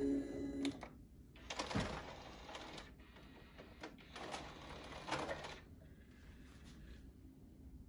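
Music from the stereo cuts off under a second in. Then the Panasonic SA-PM29's 5-disc CD changer mechanism whirs twice, each run lasting over a second, as it moves to the next disc, which the display reads.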